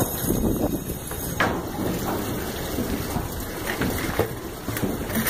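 Footsteps of several people on a metal marina gangway, with a few sharp knocks, about a second and a half in and near four seconds, under a steady rush of noise.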